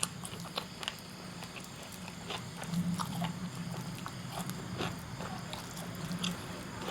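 Close-up eating sounds: a person chewing grilled chicken, with many small irregular smacks and clicks over a low steady hum.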